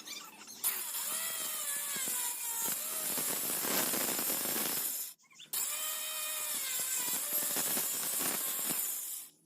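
Small electric power tool running under load, a dense grinding hiss with a motor whine that sags and recovers in pitch. It cuts out for a moment about five seconds in, then runs again before stopping near the end.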